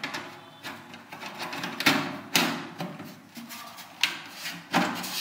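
Metal side panel of a PC case being set onto the case and slid into its rails: several sharp knocks and scrapes of metal on metal.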